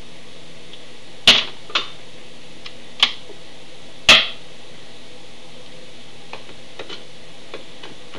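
Handling noise from an iPod and its earbuds: four sharp clicks and taps in the first half, then a few faint ticks, over a steady hiss.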